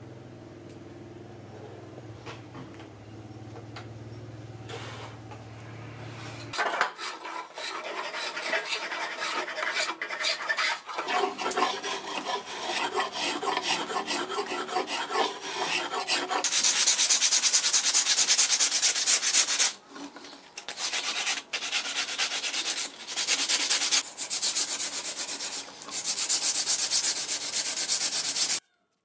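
Hand tools shaping a curved wooden blank held in a vise: a spokeshave shaving it in quick repeated strokes, then from about two-thirds of the way through a rasp scraping, louder and harsher, in bursts with short pauses. The first few seconds are quieter, with a low hum and light handling of the wood.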